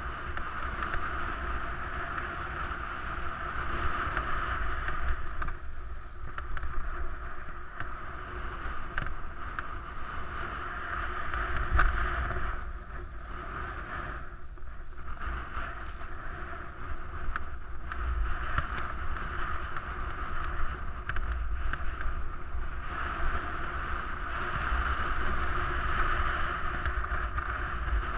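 Skis sliding and scraping over packed snow on a downhill run, a hiss that swells and fades with the turns and dips for a couple of seconds about halfway through. Wind rumbles on the microphone underneath.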